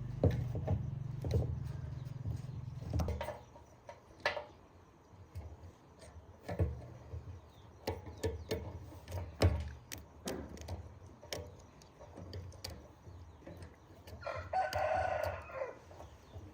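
A rooster crows once near the end, one call about a second and a half long. Before it come scattered knocks and clicks, the loudest sounds, and a low engine hum that stops about three seconds in.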